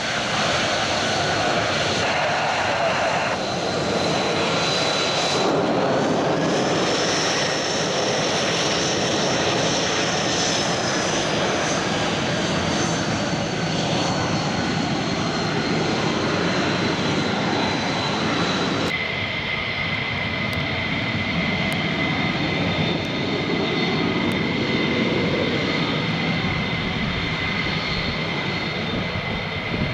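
Fighter jet engines running steadily with a high whine that climbs about six seconds in and then slowly sinks. The sound changes abruptly about two-thirds of the way through, and a steady lower whine carries on.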